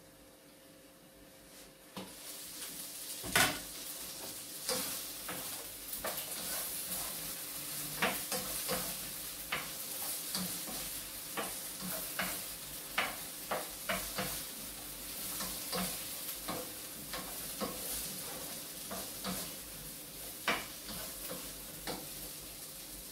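Green beans sizzling in a hot frying pan, starting about two seconds in, while a utensil stirs them with repeated clacks and scrapes against the pan; one louder clack comes just after the sizzle starts.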